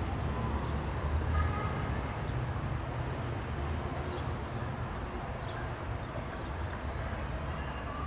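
Steady low outdoor rumble with no distinct events, with a few faint high chirps near the middle.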